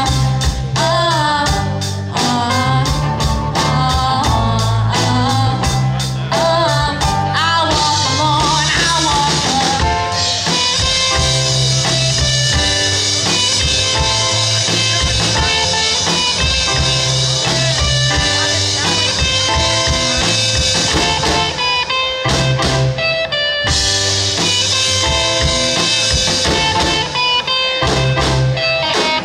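Live rock band playing: drums, bass and electric guitar with keyboard, with a lead line that bends up and down in pitch over the first ten seconds before the band settles into held chords.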